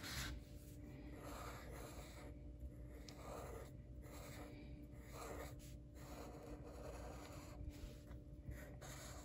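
Sharpie marker drawing on paper: faint, irregular scratchy strokes as the lines are darkened in.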